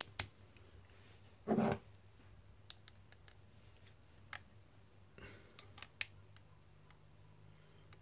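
Stainless steel Victorinox multitools being handled: a few light metallic clicks as a Phillips screwdriver is opened and the tools knock against each other. A short, louder rubbing noise comes about a second and a half in.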